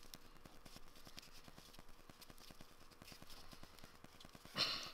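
Faint crackling and ticking of a dry cigar's thin binder leaf being picked at and peeled apart by fingers, with a short louder rustle near the end.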